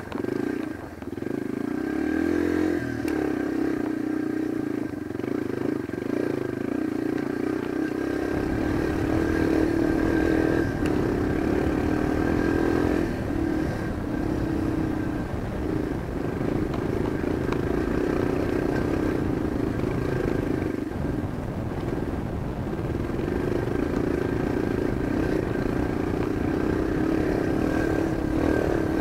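Yamaha dirt bike engine running, heard from the rider's chest, its pitch rising and falling with the throttle. From about eight seconds in a low rumble joins it.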